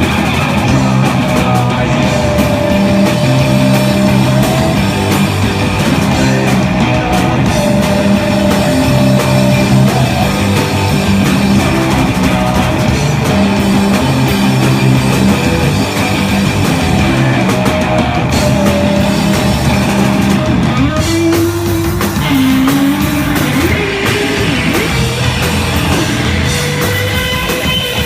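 Live rock band playing loud, guitar-driven music. About two thirds of the way through, the heavy sustained chords break off, a few bending notes follow, and then the band builds back up.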